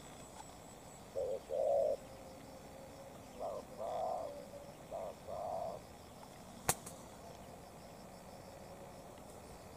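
Spotted dove cooing: three calls, each a short note followed by a longer one, spread over about five seconds. A single sharp click follows a little later.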